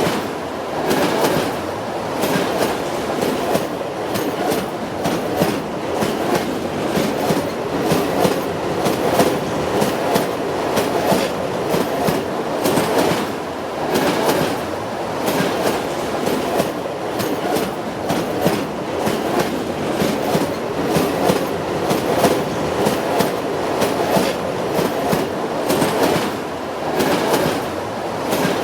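Train rolling steadily along the track, its wheels clicking in a regular clickety-clack over the rail joints above a continuous running rumble.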